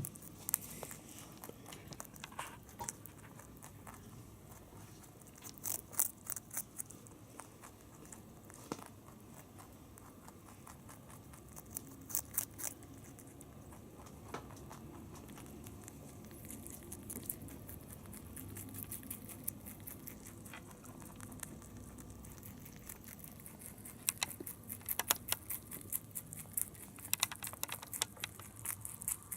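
Holland Lop rabbit biting and chewing a fresh carrot: several short bursts of crisp crunching clicks, with a longer run of them near the end.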